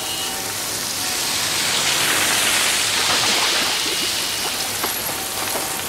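Heavy rain pouring on a city street, a steady hiss that swells louder in the middle.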